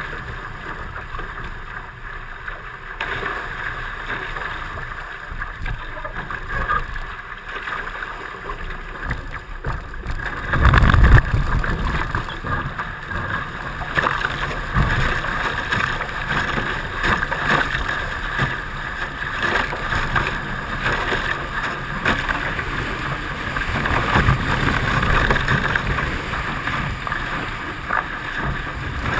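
Hobie 16 catamaran under sail: a steady rush of wind on the microphone and water along the hulls, with a loud buffet of wind about eleven seconds in.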